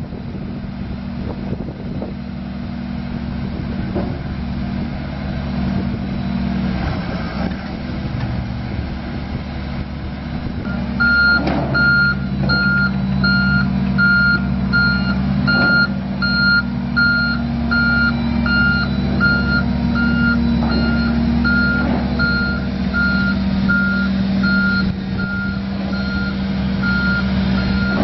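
Casagrande B105NG hydraulic piling drill rig running on its diesel engine while it moves, with a warning alarm starting about a third of the way in and beeping steadily, about one and a half beeps a second. There are occasional short clunks from the machine.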